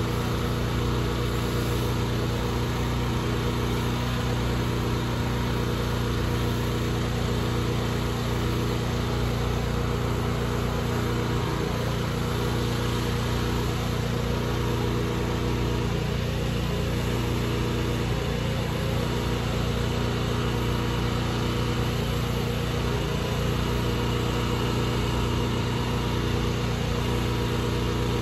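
Pressure washer's engine running steadily at constant speed, under an even hiss of water spray on concrete.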